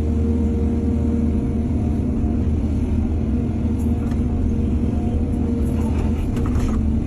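Heavy diesel engine of earthmoving machinery running steadily, with a few faint clinks about four seconds in and again near the end.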